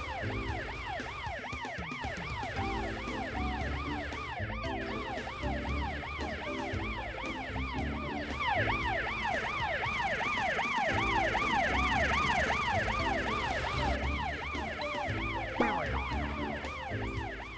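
Cartoon emergency-vehicle sirens, from a fire truck and a police car, wailing in fast rising-and-falling sweeps, several overlapping, over background music.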